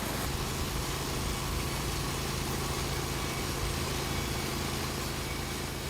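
Norwood LumberPro HD36 sawmill's engine running steadily at a constant speed, an even hum with no change in pitch.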